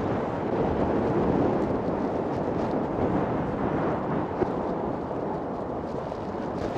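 Steady wind rush on the microphone with road noise from an electric unicycle rolling along a tarmac path at cruising speed.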